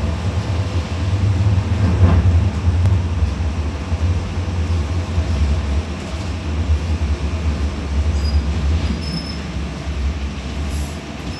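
Sheffield Supertram car 116 heard from inside its passenger saloon: a steady, loud low rumble of the tram's running gear and equipment, with a brief whine about two seconds in.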